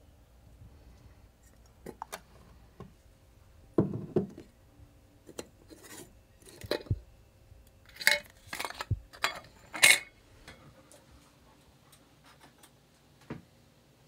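Glass mason jar and its metal lid being handled on a kitchen counter: a string of irregular clinks and knocks of glass and metal, the loudest about four, eight and ten seconds in.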